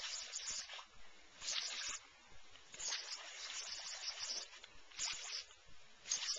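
Lawn sprinkler spray hissing in repeated bursts, every second or two, as a boxer dog bites and snaps at the water jet.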